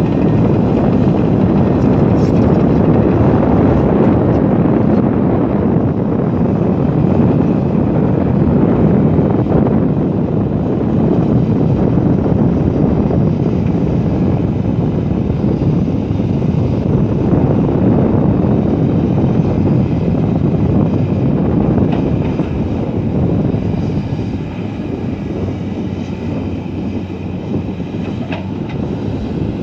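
Komatsu PC200 hydraulic excavator working: its diesel engine running steadily under load, with a dense, even mechanical rumble.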